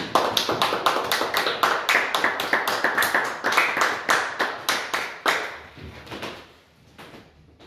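Small audience applauding, the separate hand claps distinct, thinning out and dying away about five seconds in.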